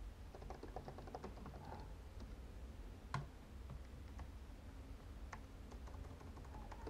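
Typing on a computer keyboard: a run of light key clicks, with one sharper keystroke about three seconds in, over a faint low hum.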